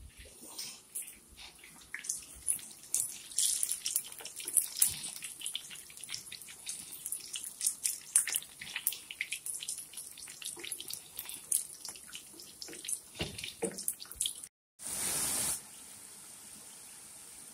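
Seasoned breadfruit chips deep-frying in a pan of hot oil, crackling and popping with many irregular sharp pops. About fifteen seconds in there is a short break and a brief burst of hiss, after which it settles into a steadier, quieter sizzle.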